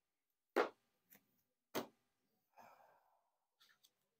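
Sleeved playing cards handled on a playmat: two sharp taps about a second apart, a brief soft rustle, then a few faint ticks.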